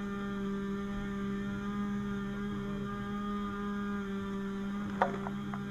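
A steady mechanical drone from a running engine or motor, with one sharp knock about five seconds in.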